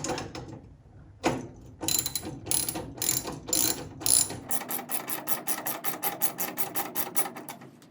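Socket ratchet wrench with a 3/8-inch socket, clicking as it turns a nut on the hood prop mounting. A few slow strokes of separate clicks come first, then about halfway through it speeds up into a quick, even run of about six or seven clicks a second.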